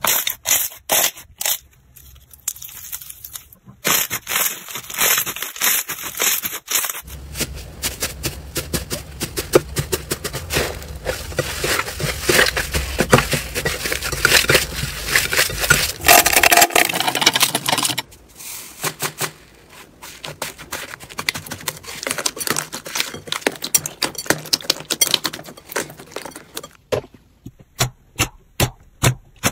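Hands squeezing, pressing and kneading slime, making dense crackling, squishing and popping. The character of the sound changes at cuts about 7, 18 and 27 seconds in. Near the end it becomes separate sharp pops, about two a second, as fingers press into glossy clear slime.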